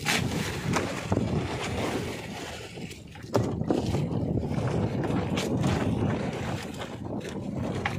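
Uneven low rumble of wind on the microphone aboard a small fishing boat, broken by a few sharp knocks as fish are handled in the box, the loudest about three and a half seconds in.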